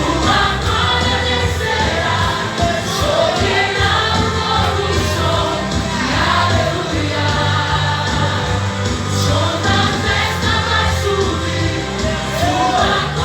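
Music: several voices singing together over a band with a steady bass and a regular drum beat, in a gospel style.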